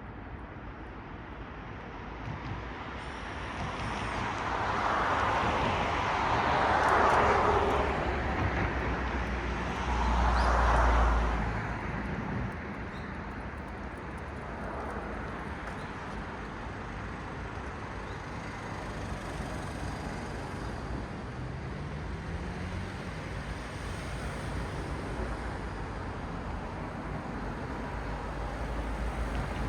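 Road traffic: tyre and engine noise of cars passing, swelling as one vehicle goes by about five seconds in and another, with a deep rumble, about ten seconds in, then a steady hum of more distant traffic.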